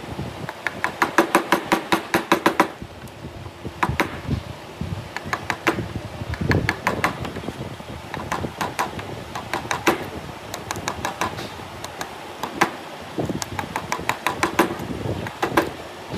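Steel wood chisel struck repeatedly as it chops waste out of a notch in a block of wood. The sharp, ringing blows come in a fast run of about a dozen strikes early on, then as single blows and short clusters.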